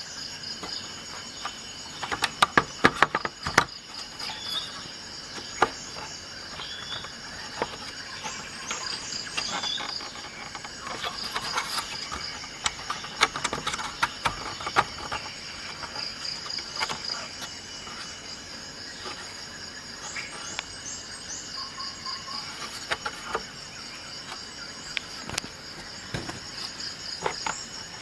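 Insect chirping in short, high, repeated trills, with sharp clicks and taps scattered through. The clicks come in a cluster a couple of seconds in and again near the end.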